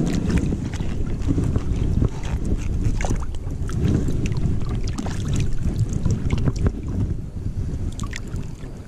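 River water sloshing and splashing around a coho salmon held in a landing net at the surface, with many small sharp splashes over a steady low rumble of wind on the body-worn camera's microphone.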